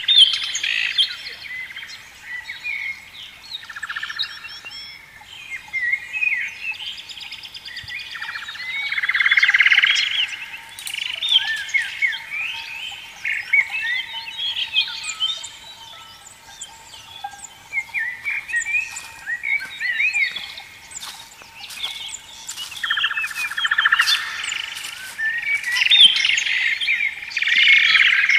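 Morning chorus of many birds chirping and whistling at once, with overlapping short calls that swell and fade, over a faint steady tone.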